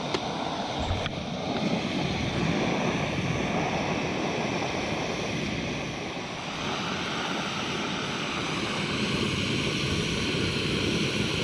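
The Jobsworth x3 stove's gas burner burning steadily under a pot of about a litre of water that is just starting to steam, well short of the boil. There is a light knock about a second in, as the pot lid is set on.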